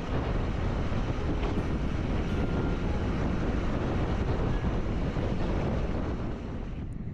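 Riding noise of a Honda Super Cub 90 at cruising speed, heard from the bike-mounted camera: a steady rush of wind on the microphone over the small single-cylinder engine and road noise. It dips slightly near the end.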